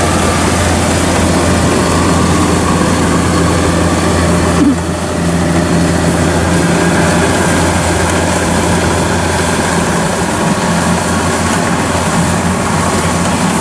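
Kubota DC-93 rice combine harvester's diesel engine running steadily while cutting and threshing rice: a loud, even drone.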